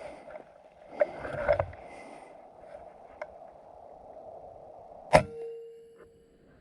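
Brief crunching sounds about a second in. About five seconds in comes a single sharp shot from an RTI Prophet .30 PCP air rifle, followed by a short ringing tone.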